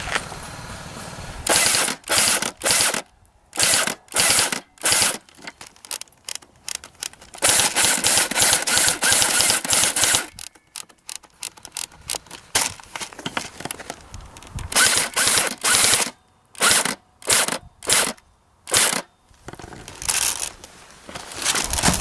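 Airsoft electric guns firing on full auto, the gearbox cycling in a series of short bursts with one longer burst of about two and a half seconds a third of the way in.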